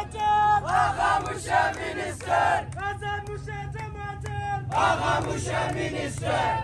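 Crowd of men chanting and shouting political slogans together, in short rhythmic bursts with a few drawn-out calls in the middle.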